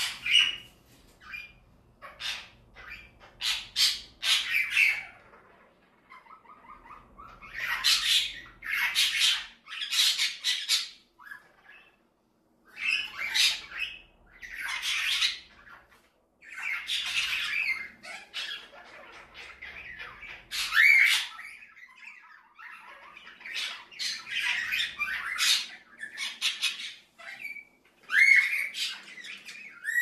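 Pet budgerigars and a canary chattering and squawking in repeated short bursts, with brief pauses between them.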